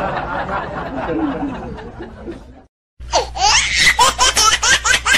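A fading jumble of noise cuts off about two and a half seconds in. After a short gap, high-pitched laughter like a baby giggling starts, in quick rhythmic bursts.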